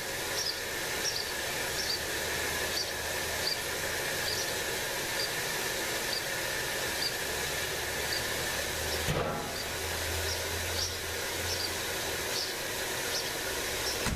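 Steady hiss of background noise with short, high chirps from birds in the roof space, repeating every half second or so. About nine seconds in there is a brief rustle or knock.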